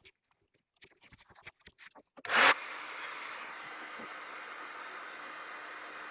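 Light clicks and scrapes of hands handling the plastic bumper pieces, then, about two and a half seconds in, a hot-air gun for plastic welding starts with a short loud burst and runs on with a steady hiss.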